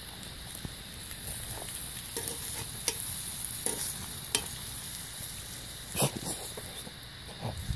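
Steaks sizzling on a hot cast iron griddle over a wood fire, a steady high hiss with scattered sharp pops and crackles, the loudest about six seconds in.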